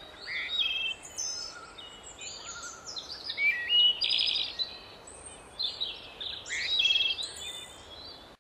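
Several songbirds chirping and singing, with quick trills and short rising and falling whistles overlapping one another over a faint steady hiss.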